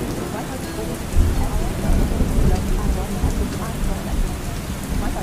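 Steady rain, with a low roll of thunder that swells about a second in and rumbles on for a couple of seconds.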